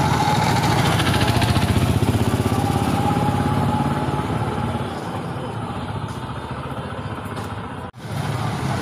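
An engine idling steadily with a fast, even beat. It quietens a little about halfway through and cuts out for an instant near the end.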